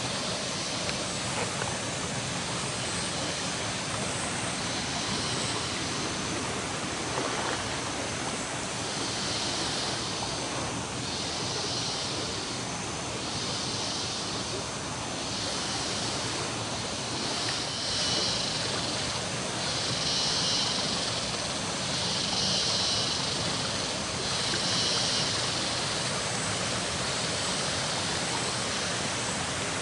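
Steady rush of a jungle river's rapids and a small waterfall over rocks. Over it, a high-pitched call repeats about every second and a half through the middle of the clip.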